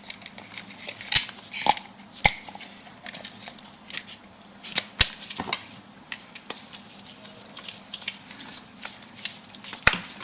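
Handling noise of a freshly wired 16-amp power plug and cable being worked on a bench: a few sharp, separate clicks with light rattles and rustles in between.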